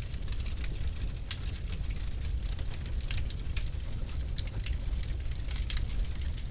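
Wood fire in a fireplace crackling, with irregular sharp pops over a steady low rumble of the flames.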